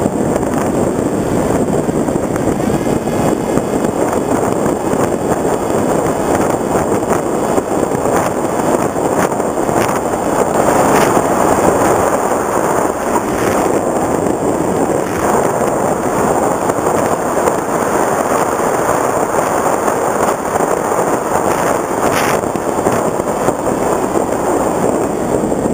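Onboard audio of an FPV Raptor foam RC plane in flight: a steady rush of wind over the camera mixed with the buzz and high whine of its electric motor and propeller, swelling a little around the middle.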